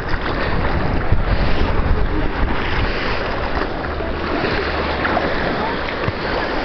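Sea water sloshing and washing over shingle right at the microphone as it is held in the shallows, with low wind buffeting on the microphone.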